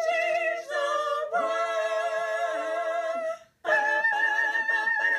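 An a cappella vocal group singing sustained chords in harmony. Several held chords change in turn, and the voices cut off together about three and a half seconds in before the next chord starts.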